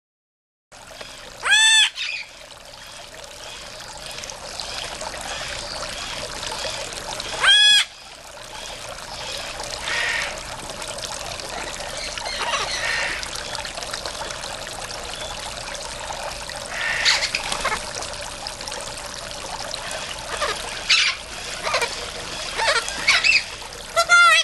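Yellow-collared macaw giving two loud calls, about two seconds and eight seconds in, then shorter, quieter calls scattered through the rest and a quick run of them near the end, over a steady trickle of running water.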